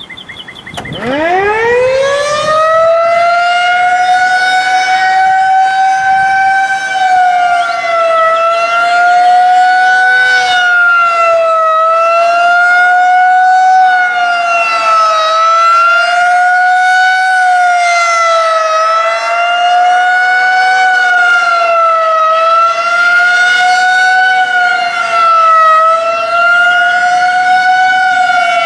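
Federal Signal 2001-SRN rotating outdoor warning siren winding up from a low growl to full pitch in the first few seconds. It then sounds a fast wail, its loud tone rising and falling about every three to four seconds: a monthly tornado siren test.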